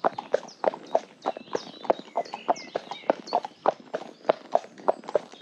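A horse's hooves clip-clopping on a tarmac road at a walk, in an even rhythm of about three to four strikes a second.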